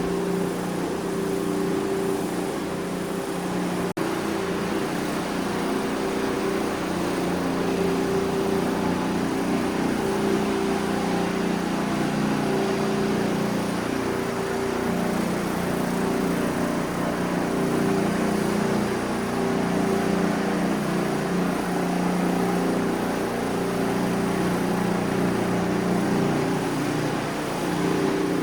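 Floor-cleaning machine running steadily as it scrubs a cleaning product into tile to break up a grout-haze film, a constant motor hum over a hiss, with one brief click about four seconds in.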